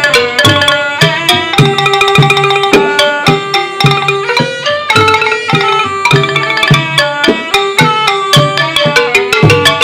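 Music with hand drums and pitched struck percussion playing fast, dense notes over a steady drum beat.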